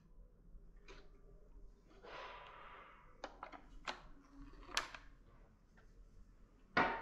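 Metal clicks and a brief scrape as a bellows airgun is handled and a detachable steel lever is worked under its stock, ending in two sharp, louder metallic clacks half a second apart near the end.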